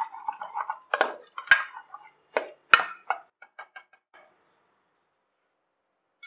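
A ladle mashing soft cooked toor dal in a pressure cooker: wet squishing, then a series of sharp knocks of the ladle against the pot. The knocks stop about four seconds in.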